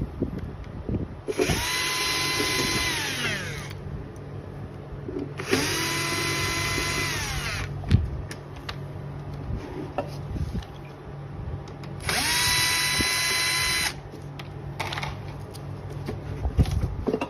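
Power screwdriver running in three bursts of about two seconds each, backing out the screws that hold a dehumidifier's casing; each run holds a steady whine and winds down as it stops. Light clicks and handling knocks between the runs.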